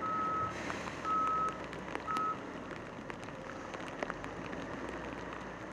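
Vehicle reversing alarm beeping three times, about once a second, on one steady high pitch; the last beep is cut short and the beeping stops. Underneath runs a steady rushing noise.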